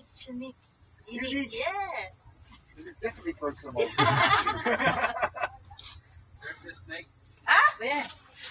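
Steady high-pitched insect chorus from the mangroves, in two bands that go on unbroken, with faint voices now and then and a short rush of noise about four seconds in.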